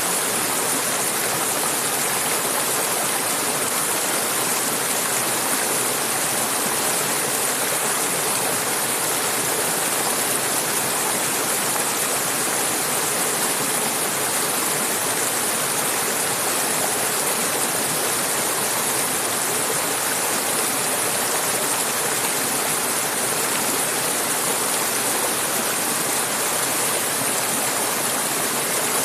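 Mountain river running over rocks: a steady rushing of flowing water with a strong hiss.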